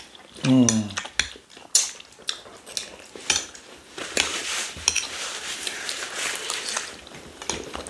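Spoons clinking and scraping against plates as rice and stew are scooped up: a run of sharp clicks, with softer scraping in the second half.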